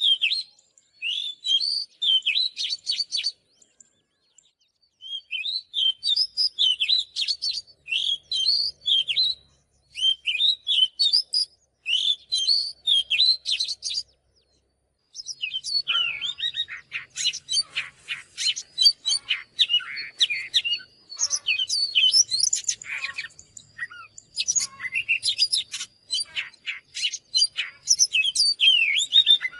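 Oriental magpie-robin song: rapid runs of varied whistles, trills and chirps in phrases of a few seconds with short pauses between them, growing denser and more continuous about halfway through. A thin, steady high tone runs beneath the song in the second half.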